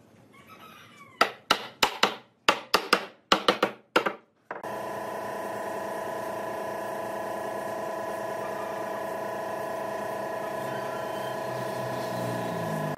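A pine board being knocked down into its slot in a wooden base: about ten sharp wooden knocks in quick succession. Partway through, a steady drone with several held pitches starts abruptly and carries on.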